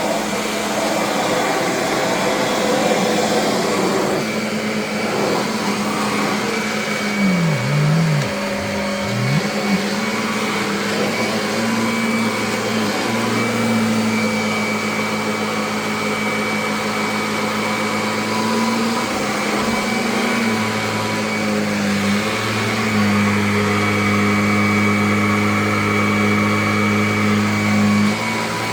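Kirby upright vacuum cleaner running steadily, its motor hum shifting in tone a few times, with brief swooping pitch changes about seven to nine seconds in.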